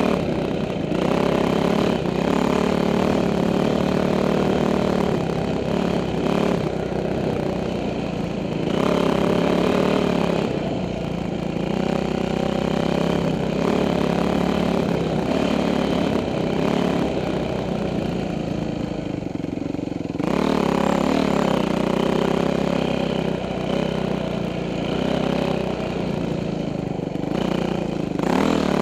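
2006 Yamaha YZ450F's single-cylinder four-stroke engine under way on the trail, its revs rising and falling again and again as the rider works the throttle.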